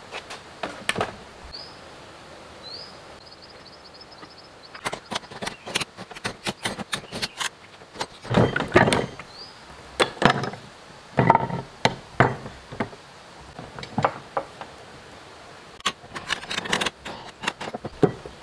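Irregular metal clanks, knocks and scrapes of hand tools and engine parts as a diesel engine's crankcase is taken apart and its crankshaft worked loose and lifted out. The heaviest clatter comes about halfway through.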